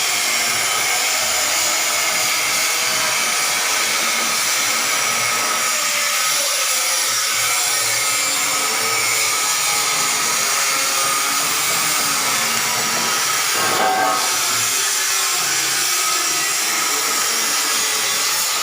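Industrial machinery running with a loud, steady whirring hiss, with a brief change about fourteen seconds in.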